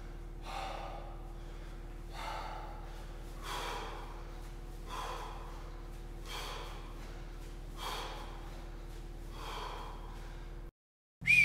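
A man breathing hard after an intense kettlebell finisher: about seven heavy breaths, one every second and a half or so, over a steady low hum. The sound cuts off abruptly near the end.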